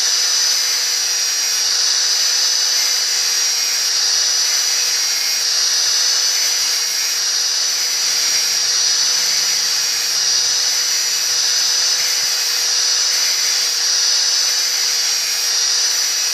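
Electric angle grinder running steadily, its disc grinding the teeth of a brush cutter's steel circular blade to sharpen them: a constant high whine over a steady grinding hiss.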